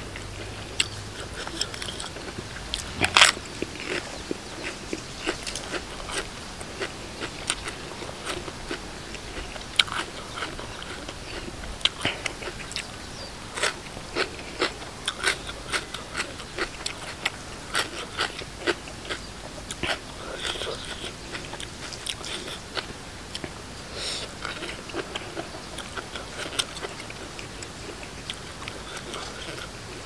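A person biting and chewing crunchy food, a spicy lotus-stem salad with raw shrimp, in irregular crisp crunches; one louder crunch about three seconds in.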